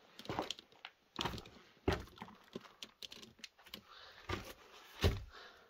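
Irregular crunching, scraping and knocking of footsteps on loose brick rubble and debris while climbing down into a cellar.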